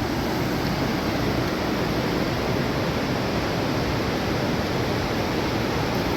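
Steady rushing noise, even and unbroken, heaviest in the low range.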